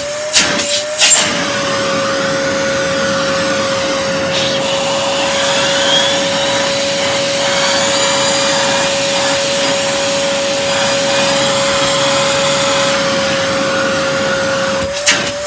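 Vacuum cleaner running steadily with a constant whine over a rushing hiss; the pitch settles slightly lower about a second in. A few sharp knocks come in the first second and again near the end.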